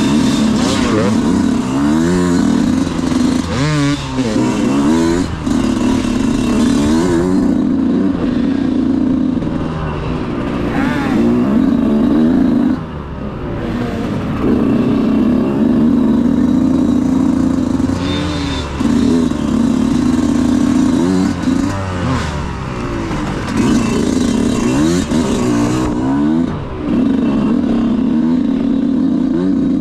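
Off-road motorcycle engine being ridden hard, its pitch rising and falling again and again as the throttle is opened and closed and the gears change.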